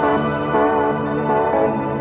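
Background music: a calm keyboard melody over a steady bass line.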